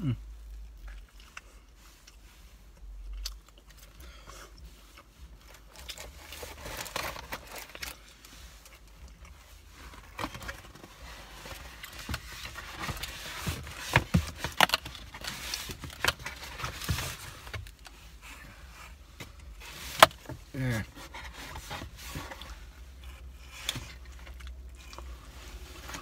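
Close-up chewing of pizza, with irregular wet mouth clicks and smacks, along with rustling and scraping of a cardboard pizza box being handled.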